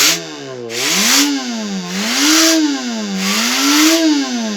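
Small fan spun by blowing into it, its output played through speakers as a whine that rises and falls three times, like a car turbo spooling up and down. The hiss of each breath is heard with every rise.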